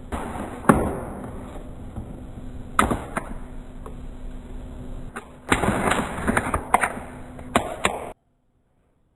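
Snacks and drinks being handled and set down while restocking: rustling with a series of sharp knocks and clatters over a faint steady hum, cutting off abruptly about eight seconds in.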